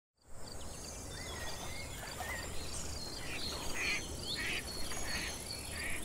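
Outdoor nature ambience: several birds chirping and whistling in short calls over a steady high insect buzz and a low rumble.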